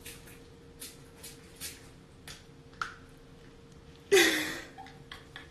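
Faint, light clicks of a small object being handled over a steady low hum, then about four seconds in a short, loud burst of noise close to the microphone.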